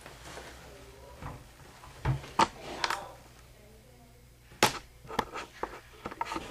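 A few sharp knocks and clunks of objects being handled and set down, with quiet room tone between them.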